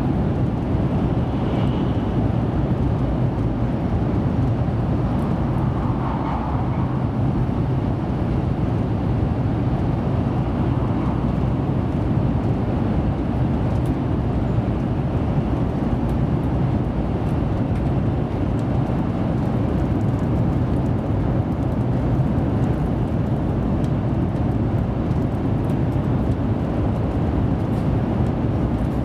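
Steady cabin running noise inside a 700 series Shinkansen car travelling along the line: an even low rumble that doesn't rise or fall.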